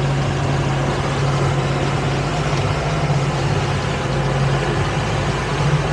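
Twin outboard motors on a towboat running steadily under load while towing a boat: a low, even engine drone with a constant rush of wind and water.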